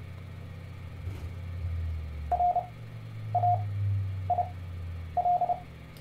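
Morse code played by the Just Learn Morse Code program as a 700 Hz tone: four characters sent quickly at 30 words a minute character speed but spaced about a second apart, Farnsworth timing for 10 words a minute overall. A low hum runs underneath.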